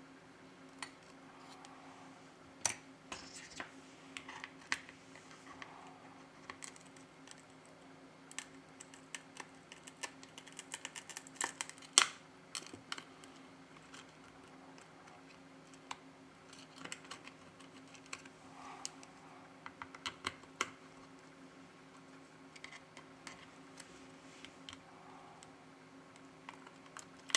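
Irregular light clicks, taps and short scrapes of a small metal prying tool working at a phone's broken back glass, the loudest click about twelve seconds in, over a faint steady hum.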